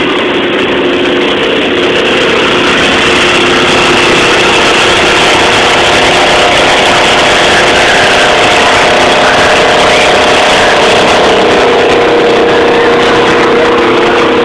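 Steady, loud electric air blower running, with a continuous hum, keeping the inflatable assault course inflated.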